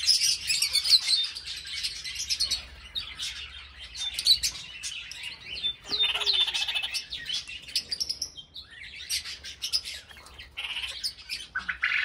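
Many small cage birds chirping and twittering together in a busy overlapping chorus of short, high calls.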